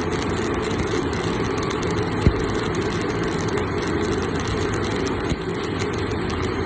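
Vertical stick (electric arc) welding on a ship's steel: a steady crackling hiss over a low, engine-like drone, with one sharp click a little over two seconds in.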